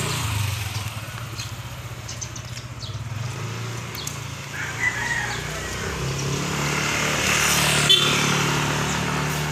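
A motorcycle engine running steadily and getting louder in the second half as it comes closer. A rooster crows once about five seconds in.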